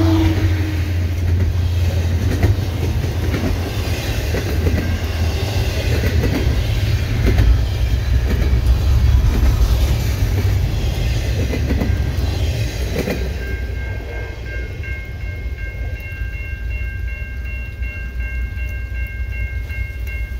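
A diesel-hauled freight train passing in heavy rain, with a deep locomotive engine rumble and wheels clicking over the rail joints. About two-thirds of the way in, the engine rumble fades, leaving the wheels and rain. From then on, steady high-pitched ringing tones sound.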